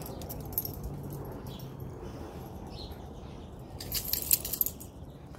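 A brief burst of small metal pieces jingling about four seconds in, over a low steady outdoor background with a few light scattered clicks.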